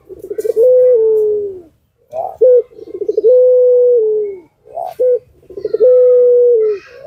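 Barbary dove (puter) cooing in the long drawn-out 'pelung' style: about three coos, each opened by a short sharp note and a quick rolling lead-in, then held at one steady pitch for about a second before dropping slightly at the end.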